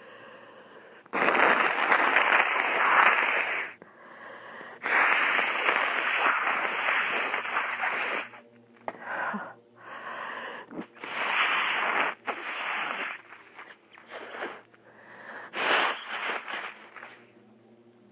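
A congested nose, stuffy with a cold, blown hard into a handkerchief: two long blows of about three seconds each, then several shorter blows and sniffs.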